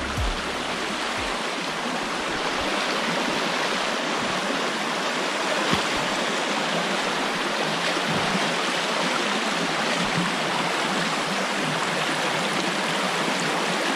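A large spring's outflow rushing over rocks, a steady strong rush of water.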